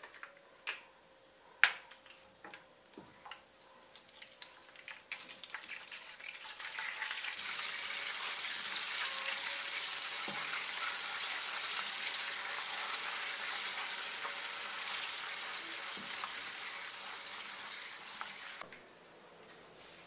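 Butter in a frying pan on a gas stove gives sparse soft pops and crackles as it browns. About seven seconds in, a loud steady sizzle starts as an ice cube hits the hot browned butter to cool it, and it cuts off shortly before the end.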